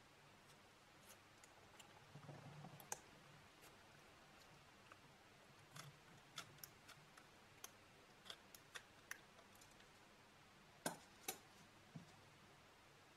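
Scissors cutting a rubber balloon skin: quiet, scattered sharp clicks of the blades, with two louder snips close together near the end.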